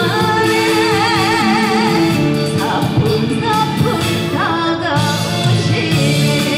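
A song with a singer and band backing: the voice holds a long note with a wide vibrato about a second in, then goes on with shorter sung notes.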